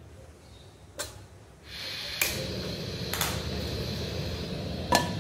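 Kitchen sounds at the stove: a click, then a steady rushing noise that sets in about one and a half seconds in and keeps on, with three sharp knocks of utensils over it.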